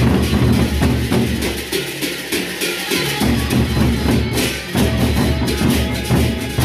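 Sasak gendang beleq ensemble playing: large double-headed barrel drums beaten in a fast interlocking rhythm under clashing hand cymbals. The deep drum strokes thin out briefly a couple of seconds in, then come back.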